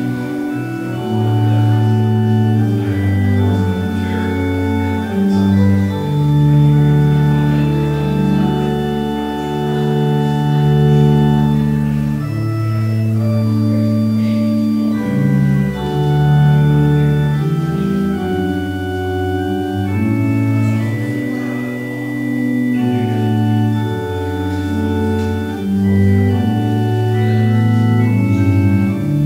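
Organ music: slow, sustained chords held over a low bass line that moves to a new note every one to three seconds.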